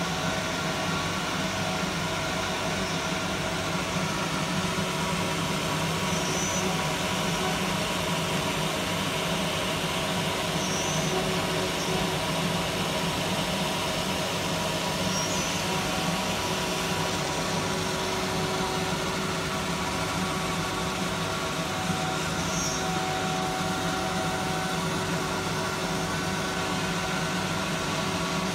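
Fiber laser marking machine running while it engraves an aluminium plate: a steady mechanical hum with several constant tones, and a few faint high blips every few seconds.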